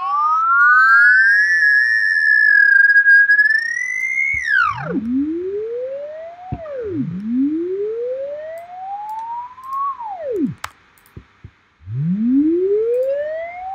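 Synthesized sine tone from a Blender Audio Nodes sine oscillator, swooping in pitch: it rises slowly, then plunges sharply, about four times over. At first two tones glide together. There is a brief dropout with a few clicks just before the last rise.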